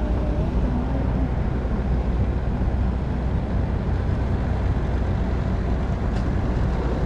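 A motor running steadily: an even low rumble with a deep hum under it.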